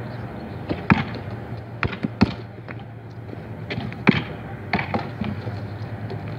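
A basketball being passed back and forth, making several sharp, short smacks as it strikes hands and pavement, spread irregularly through the few seconds.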